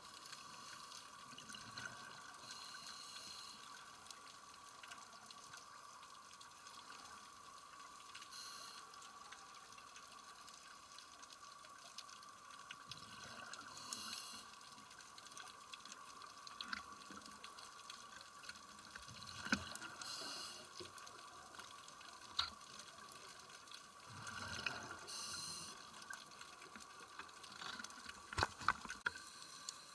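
Underwater sound through a camcorder housing: a scuba diver breathing on a regulator, with a hissing burst of exhaled bubbles about every five to six seconds over a steady hum. A few sharp clicks come in the second half, the loudest near the end.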